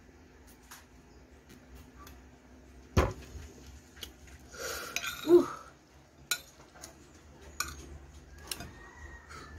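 Metal spoon clinking and scraping against a plate while eating, in scattered sharp clicks, with one loud clink about three seconds in. A brief whine sounds about five seconds in.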